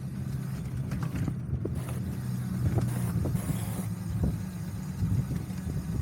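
Recumbent quad cycle rolling along: a steady low rumble of tyres and running gear, with scattered small clicks and rattles and some wind on the microphone.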